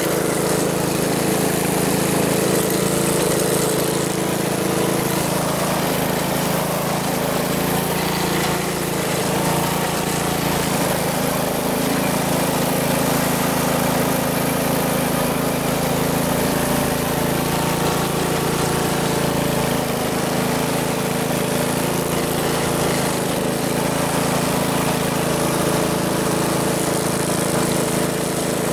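Car engine running steadily, its speed changing little.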